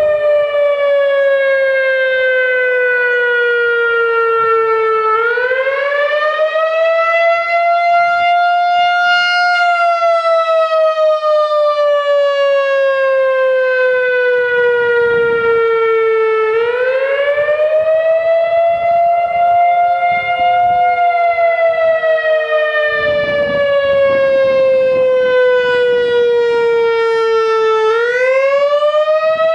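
Whelen WPS 3016 electronic outdoor warning siren sounding its wail tone normally: one loud steady tone that slowly falls in pitch and then rises again, in cycles of roughly eleven seconds.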